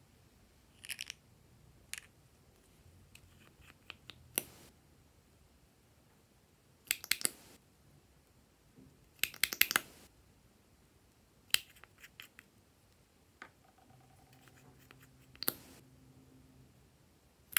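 Small plastic objects being handled: scattered sharp clicks and a few short bursts of clicking clatter, the loudest around seven and ten seconds in.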